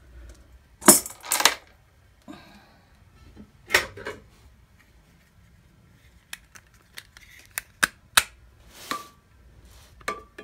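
Household items being handled and set down on a hard surface: clinks and knocks, a few louder ones in the first four seconds, then a quick series of sharp clicks in the second half.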